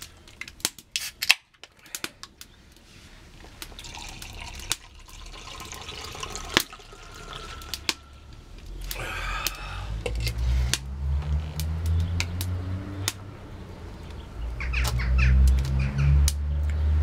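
A drink from a can being poured into a glass, with a few sharp clicks of can and glass handling in the first two seconds and a splashing pour. In the second half a low rumble that rises in pitch builds up and is loudest near the end.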